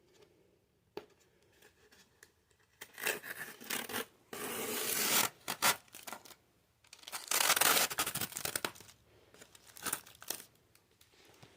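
Adhesive tape being peeled off a styrofoam box in a series of pulls: short crackly strips, then two long loud rips of about a second and a half each around the middle, then a few shorter ones.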